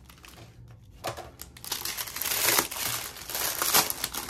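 Clear plastic packaging bag crinkling as it is handled and opened by hand, starting about a second in and getting louder toward the end.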